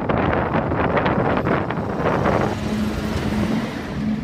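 A red SBB electric locomotive and its passenger coaches rolling past at close range, with a heavy rush of running noise. About halfway through the rush eases as the coaches go by, and a steady low hum sets in.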